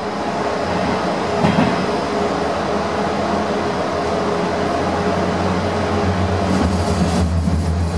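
Rome Metro Line C driverless train heard from inside the car as it accelerates away from a station: steady rail running noise with a low hum, growing a little louder.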